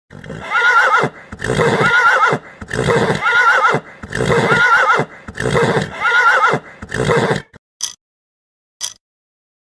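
Horse neighing, about six loud whinnies in a row, each about a second long with a quavering pitch. Near the end come three short clicks about a second apart.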